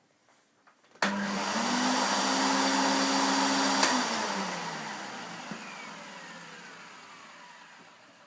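Electrolux upright vacuum cleaner motor switched on about a second in, quickly spinning up to speed. About three seconds later it is switched off with a click and winds down slowly, its whine falling in pitch and fading.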